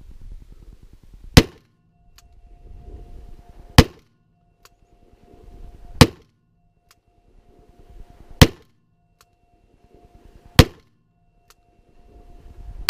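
Ruger Super Redhawk .44 Magnum revolver fired six times, spaced about two and a half seconds apart, the last shot right at the end. A faint click follows about a second after each of the first five shots.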